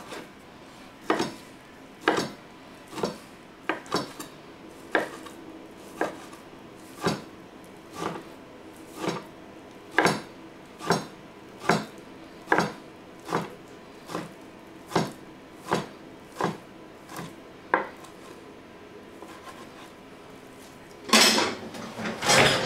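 Chef's knife cutting through raw pork tenderloin and knocking on a plastic cutting board, about one cut a second in a steady rhythm that stops after about eighteen seconds. Near the end, a louder clatter of handling on the counter.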